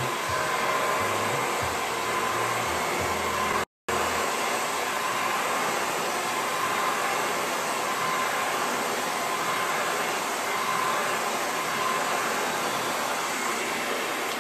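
Handheld hair dryer blowing steadily through hair: an even rush of air with a faint high whine. The sound cuts out for an instant nearly four seconds in.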